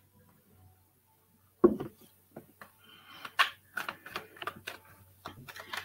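A knock about a second and a half in, then a run of irregular clicking taps of typing on a computer keyboard.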